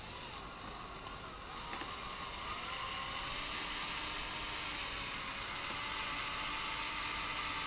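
Electric drill running, spinning a fiberglass tent-pole dowel that winds nylon trimmer cord into a tight coil. The motor's pitch rises over the first couple of seconds as it speeds up, then holds steady.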